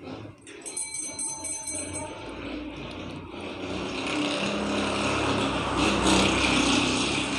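Hands scooping and slapping a wet gram-flour and potato filling out of a glass bowl onto naan dough: a rough, squelching handling noise that grows to its loudest near the end. About a second in there is a brief light jingle.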